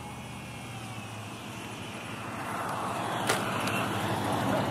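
Electric RC foam airplane's Turnigy C2830 brushless motor and propeller running, with a steady rush of noise that grows gradually louder, and a single sharp knock about three seconds in.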